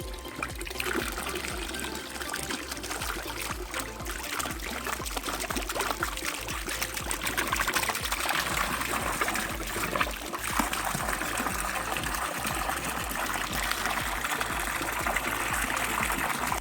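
Water pouring and trickling in a steady stream into standing water; it cuts off abruptly at the end.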